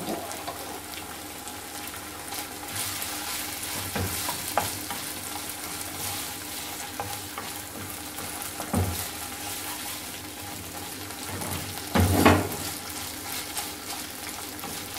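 Minced meat sizzling in a non-stick wok as a wooden spatula stirs and scrapes it through, with a few sharp knocks of the spatula against the pan, the loudest about twelve seconds in.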